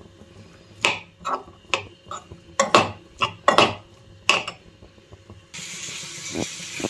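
A metal spatula knocking and scraping against a small pan while sliced onions and garlic are stirred in oil, about nine sharp, uneven clinks. A steady hiss takes over abruptly near the end.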